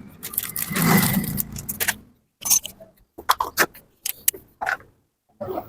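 Metal tools and engine parts clinking and scraping against each other as a small motorcycle engine is worked on: a rattling scrape for the first two seconds, then a series of short separate clinks.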